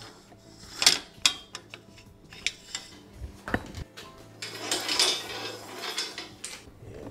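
Clicks and knocks of a garage door opener trolley and its emergency release cord being handled on the belt-drive rail, with a heavier knock about three and a half seconds in and a longer rattling noise around five seconds.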